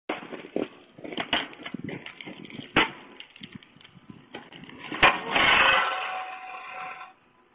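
A shovel scraping and knocking at ice on a concrete driveway in irregular strokes. About five seconds in there is a loud clatter as the person slips and falls onto the ice, followed by a longer, louder scraping noise.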